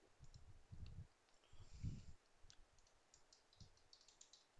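Faint clicking of a computer keyboard and mouse, with a quick run of keystrokes in the second half and a few soft low thumps earlier.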